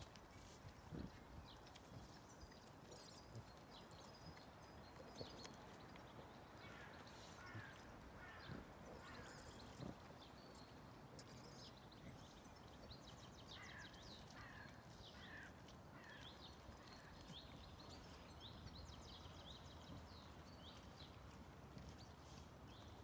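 Faint scuffing and soft knocks of wild boar rooting with their snouts in loose soil. Two short runs of small high chirps come in, about seven and fourteen seconds in.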